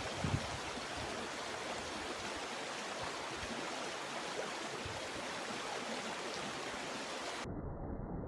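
Stream water rushing steadily over rocks, with a low thump just after the start. Near the end it cuts suddenly to a duller, low rumble.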